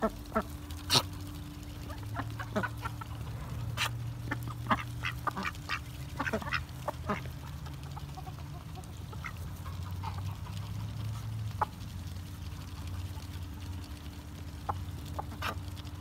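Ducks feeding on grain scattered on bare ground, quacking while their bills peck and dabble at the dirt in many quick sharp clicks.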